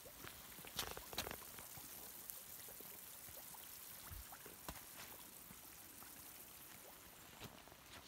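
Faint bubbling and trickling of a naturally carbonated, iron-rich mineral spring welling up into a shallow pool. A few sharp clicks stand out, the loudest about a second in.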